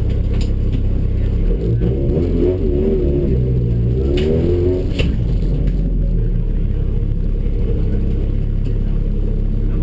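Tuff truck's engine running loudly at idle, heard from inside the cab, its note wavering for a few seconds midway. A couple of sharp clicks about four and five seconds in.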